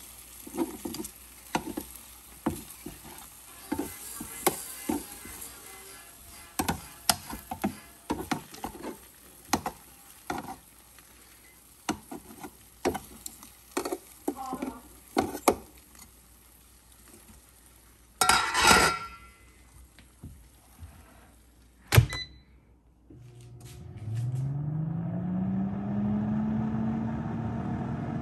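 Metal tongs clicking and clacking against the wire rack and chicken drumsticks in an air fryer oven, a scrape, and a sharp click. Then the air fryer oven's fan starts, a hum rising in pitch as it spins up and settling to a steady run.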